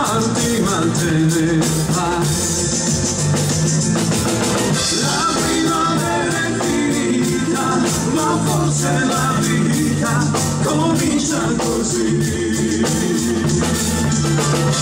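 Live band playing a song in a cumbia rhythm, drum kit and amplified instruments, with a man's voice singing over it through a microphone.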